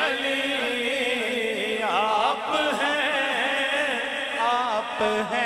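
Man singing a naat into a microphone: a long, wavering, ornamented vocal line with melismatic runs, over a steady lower tone held beneath it.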